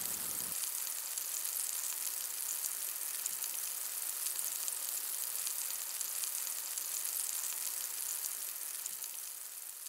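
Food frying in a hot pan, a steady sizzle with fine crackles that fades out near the end.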